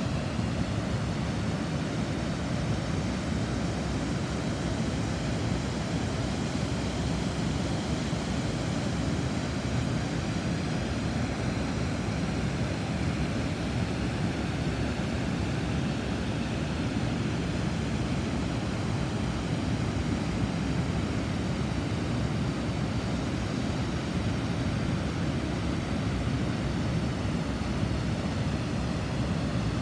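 River water pouring steadily over a weir: a constant, deep rush with no breaks.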